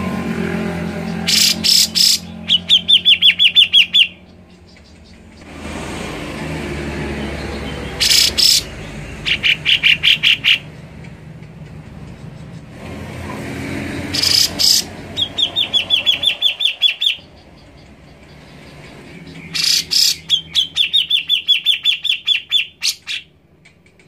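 Grey-cheeked bulbul (cucak jenggot) calling four times in a repeating phrase: a few loud, sharp notes, then a fast trill of about a dozen quick notes, each phrase lasting a couple of seconds.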